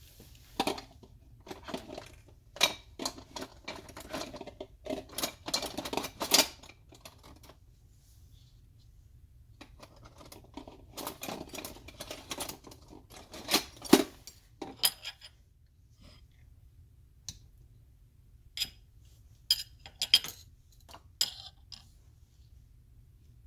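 Objects being handled on a hard surface: clusters of sharp clicks, knocks and clatter, with short quiet gaps between the clusters.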